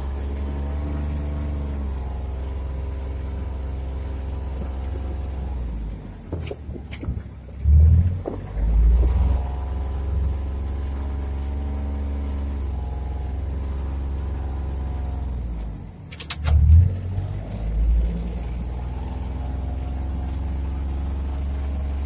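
Engine of a farm utility vehicle running steadily, heard from inside its cab. Twice, about six and sixteen seconds in, the engine sound drops away with a few sharp clicks, followed by two or three heavy low thuds before the steady running returns.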